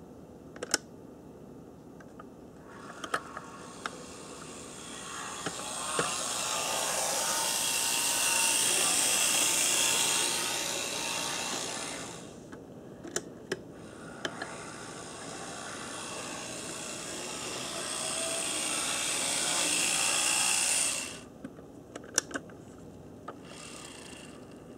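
HO-scale brass 2-6-6-2 articulated model steam locomotive running on track: its motor and gearing whine, swelling and fading as it passes by twice, with sharp clicks in between.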